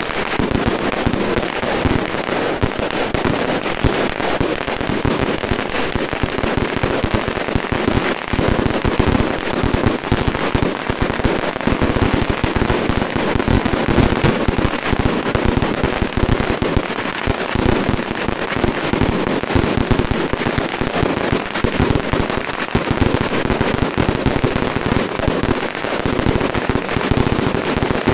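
A continuous barrage of firecrackers: dense, rapid bangs packed so closely that they run together into one steady, unbroken crackle.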